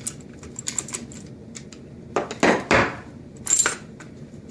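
Metal clinks and clatter of a steering wheel puller and hand tools working on a GM steering column, with louder clunks about two and a half seconds in and again near three and a half seconds.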